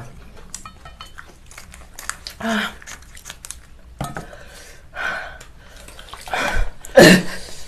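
Wooden chopsticks clinking and scraping against stainless steel noodle bowls, a handful of separate clatters with the loudest near the end.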